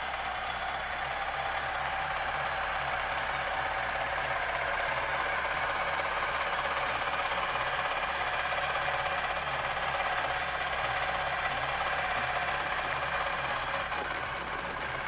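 Suzuki Gixxer SF 250's single-cylinder 250 cc engine idling steadily.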